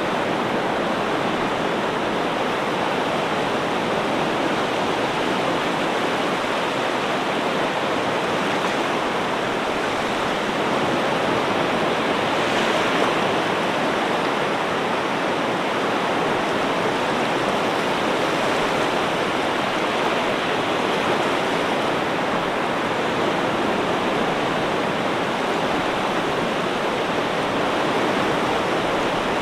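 Ocean surf: a steady, even rush of washing waves with no distinct breaks, swelling a little now and then.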